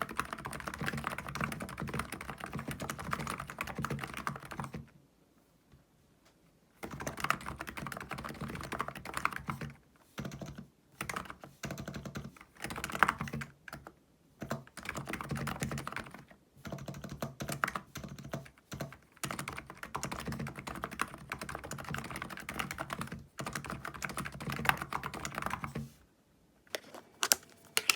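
Fast typing on a Hansung electro-capacitive (무접점) keyboard: long runs of rapid key clicks, broken by short pauses, the longest about two seconds some five seconds in and another near the end.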